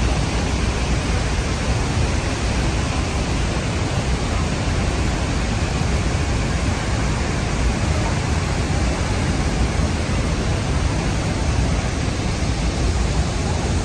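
Horseshoe Falls' water pouring down close by, heard as a steady, unbroken rushing noise, heaviest in the low end.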